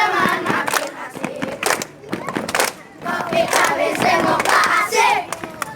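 A group of children singing and shouting together in chorus, with sharp hand claps among the voices.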